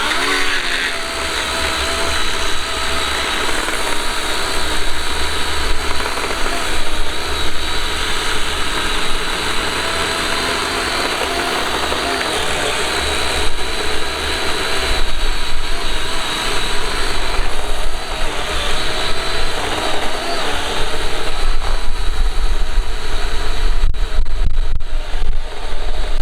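Chainsaw starting up suddenly and running at full speed while cutting a log, a steady high whine that gets louder over the last few seconds.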